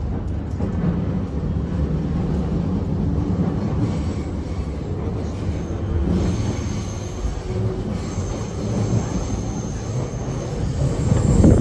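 Inside the car of a JR East E231 series commuter train as it runs: a steady low rumble of wheels on rail. From about halfway in there is a thin high squeal from the wheels, and a louder thump comes near the end.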